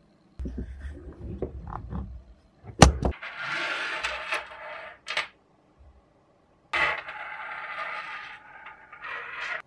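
Parts of an old electric soldering iron, including its wooden handle and a bent steel wire stand, handled on a wooden tabletop: low rubbing at first, a sharp click about three seconds in, then two stretches of scraping.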